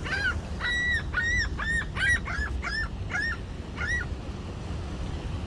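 Gull calling: a quick series of about ten short, arched calls over about four seconds.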